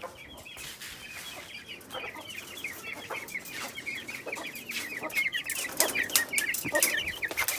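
A caged flock of young chickens cheeping rapidly and continuously, many high peeps overlapping, growing louder toward the end. Metallic clicks and rattles from the padlock on the wire cage door come in the last couple of seconds.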